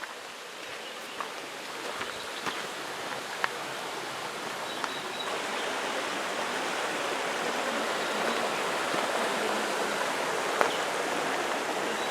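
Stream water rushing steadily, growing louder over the first half and then holding level, with a few short sharp clicks on top.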